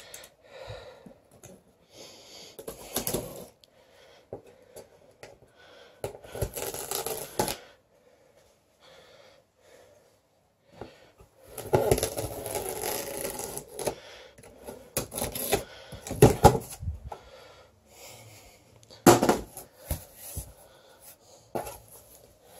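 A cardboard shipping box being opened with a utility knife. The blade slits the packing tape along the seam in a longer scraping stretch about halfway through, among irregular scrapes and knocks of the cardboard flaps being handled and pulled open.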